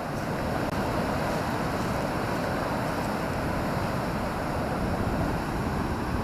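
Sea surf washing onto the beach, a steady hiss with wind buffeting the microphone.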